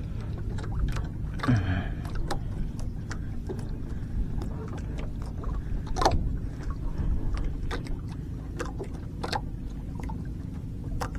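Water sloshing against the hull of a small wooden outrigger boat, with a steady low rumble and scattered knocks and clicks of hands and fishing gear on the boat. The sharpest knock comes about six seconds in.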